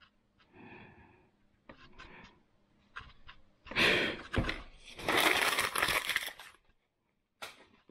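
Sheet of printer paper being crumpled up by hand: two loud bouts of crinkling, the first about four seconds in and a longer one right after, following a few fainter rustles and taps.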